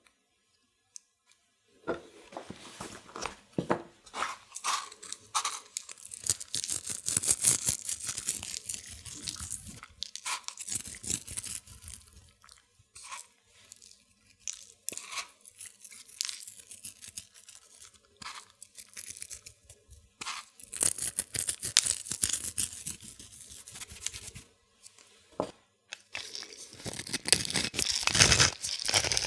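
Hands laying and pressing wet, sliced tomatoes onto puff pastry on parchment paper, making a long string of small, irregular wet clicks and crackles, with a pinch of salt sprinkled over them. Near the end a pepper mill starts grinding over the tomatoes.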